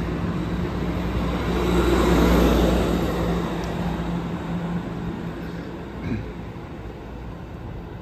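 Amtrak Pacific Surfliner bilevel passenger train pulling out, its coaches rolling past with a steady low hum and rumble, loudest about two seconds in, then fading as the train moves away.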